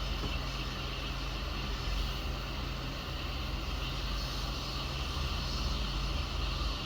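Hot air rework station blowing steadily over a phone's USB-C charging port, heating its solder to free the port, with a low electrical hum underneath.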